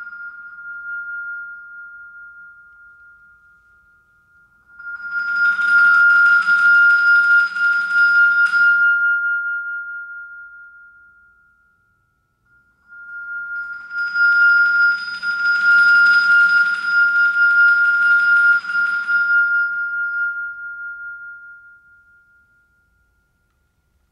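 Musser vibraphone struck with yarn mallets. A single high note rings on and fades, then two dense passages of notes gather around that same pitch, each swelling and dying away over several seconds. There is a brief near-silent gap between them about twelve seconds in.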